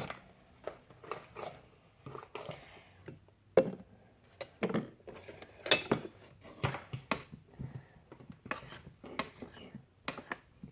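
A utensil clinking and scraping against a bowl in irregular strokes as sticky slime is stirred, with more activator being mixed in to make it less sticky.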